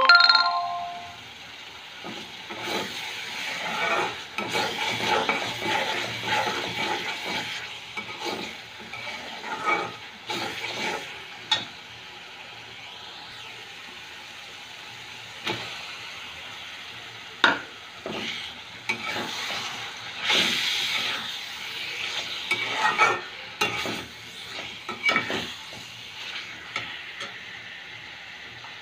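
Metal spatula stirring and scraping a thick onion-and-spice masala around a metal karahi, with the paste sizzling as it fries. The strokes come in bunches, with a quieter stretch about halfway through and a few sharp clinks of the spatula on the pan.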